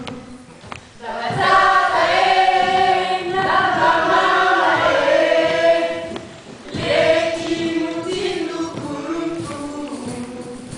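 A group of voices singing together in chorus. The singing swells in about a second in, breaks off briefly about six seconds in, then a second phrase comes in and gradually grows softer.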